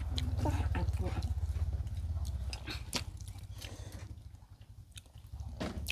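People eating by hand: chewing and mouth sounds with scattered short clicks, over a low rumble that fades about two and a half seconds in.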